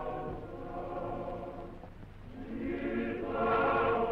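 Choir singing long held chords. The singing dies down about two seconds in, then swells again on a new chord.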